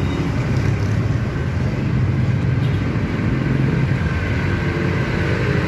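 A motor vehicle engine running steadily, a continuous low rumble with no clear change over the few seconds.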